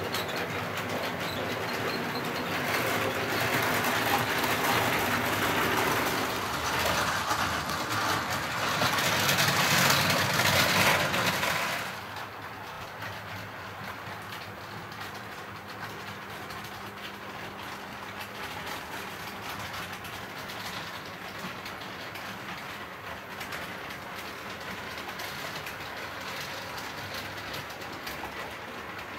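Model trains running on a model railway track. The running noise is louder and builds over the first eleven seconds or so, then drops suddenly to a quieter, steady running sound with a faint low hum.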